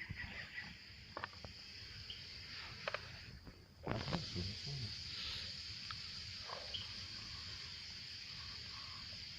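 A steady, high insect chorus, cut by a few light clicks and knocks; it drops out briefly just before four seconds in and comes back with a louder knock.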